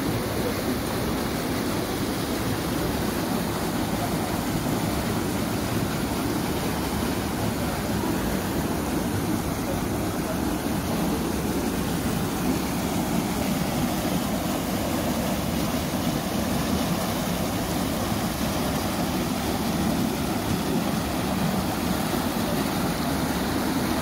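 River water rushing and churning between rocks near the top of a waterfall, a steady even rush.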